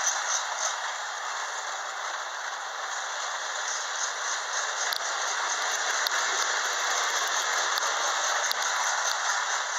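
Lionel toy train running around the track, its wheels giving a steady rattle on the rails.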